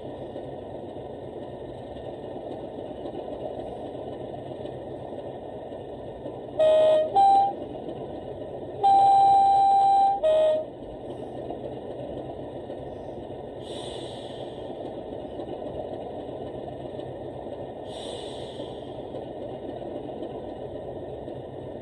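Sound-fitted Accurascale Class 37 model locomotive's speaker playing a steady English Electric diesel engine sound. About seven seconds in its two-tone horn sounds a short low-high pair, then a long high note ending on a short low one; two brief hisses follow later.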